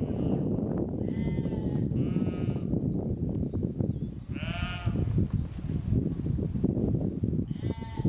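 A large flock of sheep grazing, with several bleats from different animals, the loudest about halfway through. A constant low rushing noise runs underneath.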